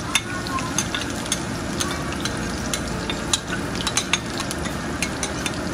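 Chopped ginger, garlic and green chillies frying in hot oil in a kadai: a steady sizzle full of small pops and crackles.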